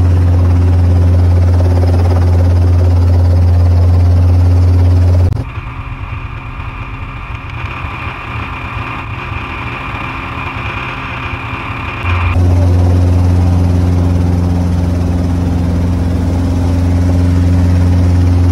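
Light helicopter running on the ground, heard from inside the cockpit as a steady low drone of engine and rotor. About five seconds in the sound switches to the helicopter heard from outside, quieter and with a higher steady whine. About seven seconds later the cockpit drone returns.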